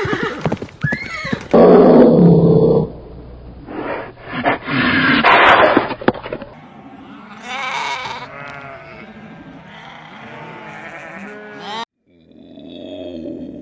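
A run of short, abruptly spliced farm animal clips, with bleating among them. The sound changes suddenly about a second and a half in, again around six and a half seconds in, and near the end.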